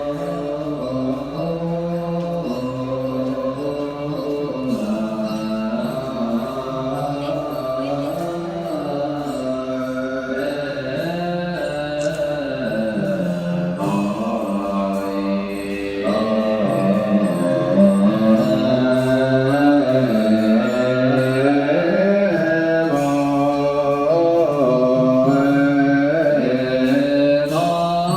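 Background music with a slow, chant-like sung melody that glides between sustained notes. It gets louder about halfway through.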